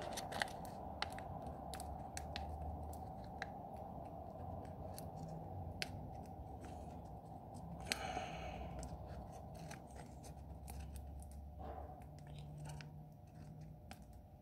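Waxy backing paper and clear transfer sheet of a vinyl decal crinkling and crackling as they are handled and peeled apart: scattered sharp ticks and one brief louder rustle about eight seconds in, over a steady faint hum.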